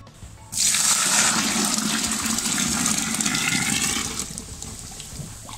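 Hot water poured from a stainless steel pot into a plastic bucket, a steady stream splashing onto sugar and cornmeal. The pour starts suddenly about half a second in and tapers off over the last second or so.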